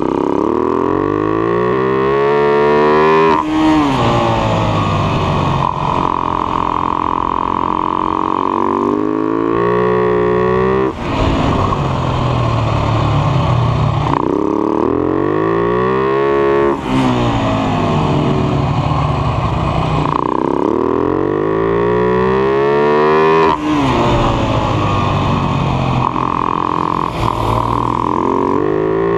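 Husaberg FS 570 single-cylinder four-stroke supermoto engine at race pace: the revs climb and fall back again and again through the lap, with a sudden sharp dip in sound five times as the throttle snaps shut.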